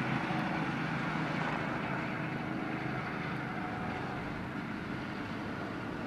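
Go-kart engine running as a kart drives past on the track, getting gradually quieter as it moves away.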